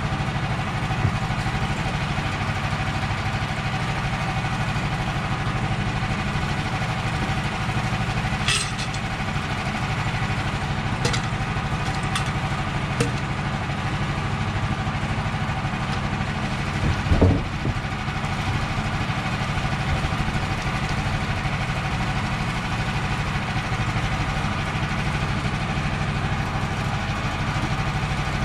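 Gas engine of a manual Woodland Mills bandsaw sawmill running steadily, with a few sharp clicks about a third of the way in and a single louder knock a little past halfway.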